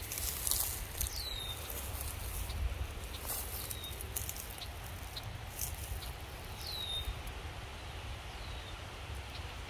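A bird calls four times with a short whistle that slides downward, about a second in, twice faintly and once near seven seconds. Underneath are a steady low wind rumble and brief rustling clicks.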